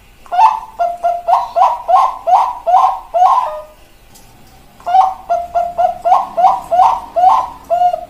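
Zebra dove (Bangkok-type perkutut) singing its rhythmic cooing song: two runs of about eight short coo notes each, the second beginning about five seconds in after a brief pause.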